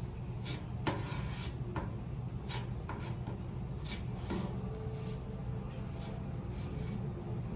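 Hand work on an aluminum fuel tank: short, irregular scraping and rubbing strokes with scattered light clicks, over a steady low hum.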